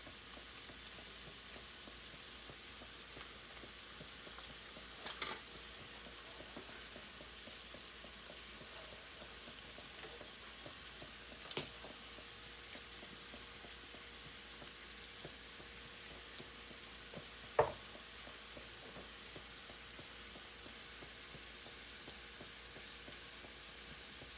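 Beef and broccoli sizzling steadily in a skillet on low heat in a soy-sauce-based sauce. Three short knocks or clinks, as of a utensil against the pan, come through it; the loudest is about two-thirds of the way through.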